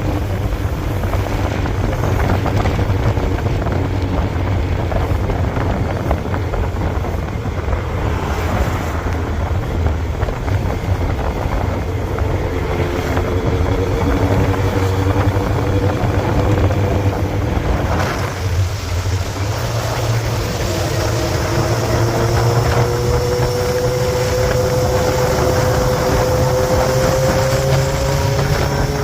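An engine running steadily with a low rumble and a faint hum. About two-thirds of the way through the hum drops out briefly, then returns and slowly rises in pitch.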